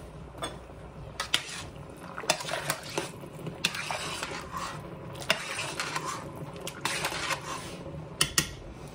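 A spoon stirring soup in a stainless steel pot, with repeated clinks and scrapes against the pot's sides and bottom.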